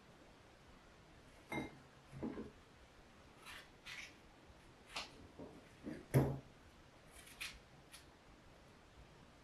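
About ten soft clicks, taps and rubs of hands working strawberries over the cake, with one louder knock about six seconds in.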